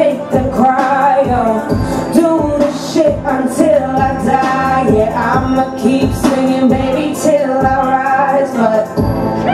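Hip hop track with a steady beat and a woman singing a melodic line over it, amplified for a live stage performance.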